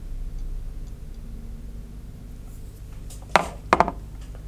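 Sheathed knives with metal guards and sheath fittings clicking and knocking against each other as they are handled: one sharp click a little over three seconds in, then a quick cluster of two or three more, over a low steady hum.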